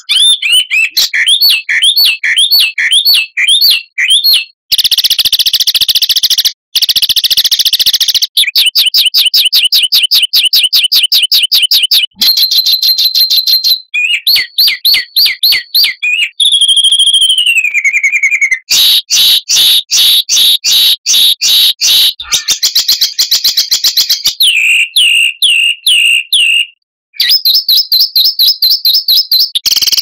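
Loud, rapid songbird song spliced from several recordings into a masteran tutoring track of dense, harsh 'tembakan' phrases for training cage birds. Fast repeated chattering notes and trills change abruptly to a new phrase every few seconds, with a long falling whistle about halfway through.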